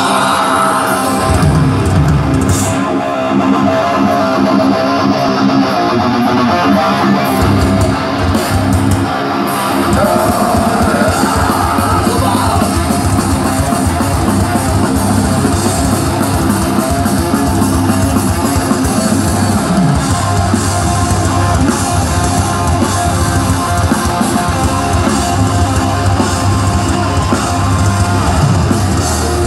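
Heavy metal band playing live over a big concert PA: distorted electric guitars and drum kit, heard from within the crowd.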